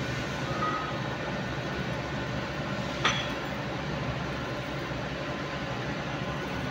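Steady din of running gear-cutting machinery in a machine shop, with a single sharp metallic clink about three seconds in as a steel gear is handled at the machine.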